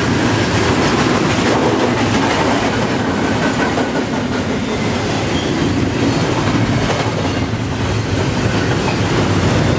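Double-stack intermodal well cars of a long freight train rolling past close by at about 40 mph: a steady rumble and rush of steel wheels on the rails.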